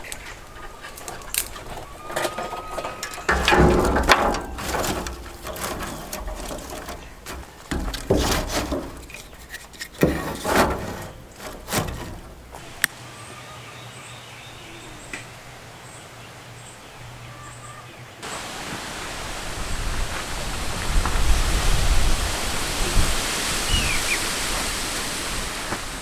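Hands-on cooking sounds at a wood and charcoal grill while hamburgers are cooked: a run of sharp knocks and clatters in the first half. From about two-thirds of the way in, a steady hiss comes up and holds.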